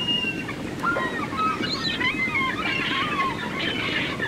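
Outdoor harbour ambience: wind rumbling on the microphone, with faint short chirps and whistles scattered over it.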